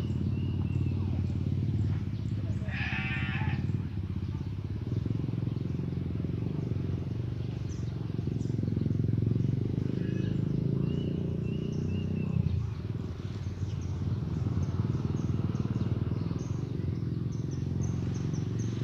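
A goat bleats once, a wavering call about three seconds in, over a steady low rumble.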